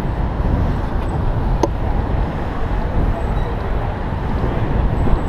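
Steady city traffic and road noise heard from a moving bicycle, under a heavy low rumble of wind on the microphone. A single sharp click sounds about a second and a half in.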